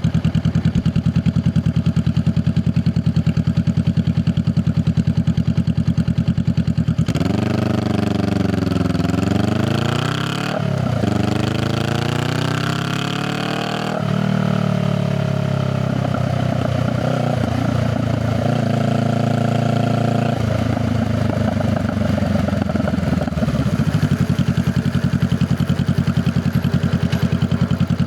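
Honda Rebel 500's parallel-twin engine and exhaust idling with an even, pulsing beat. About seven seconds in it revs up as the bike pulls away, with a brief dip in pitch near ten seconds like a gear change, then rises again. It runs on at varying speed, slows, and settles back to idle near the end.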